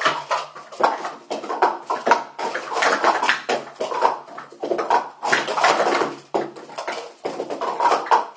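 Speed Stacks plastic sport-stacking cups clattering rapidly and without pause as they are upstacked and downstacked through a full cycle on a stack mat.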